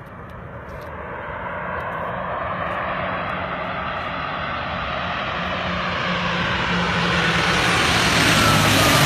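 Twin-turboprop airliner on final approach to land, flying low. Its engine and propeller drone grows steadily louder and peaks as it passes close near the end, with a whine that falls in pitch as it goes by.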